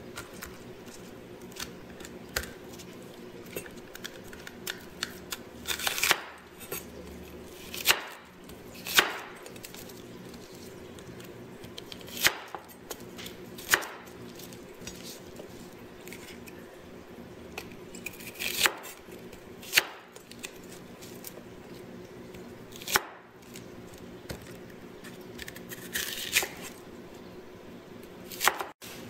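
Chinese cleaver cutting bok choy on a round wooden chopping block: irregular sharp knocks of the blade hitting the board, about a dozen of them, a second or several apart, over a faint steady hum.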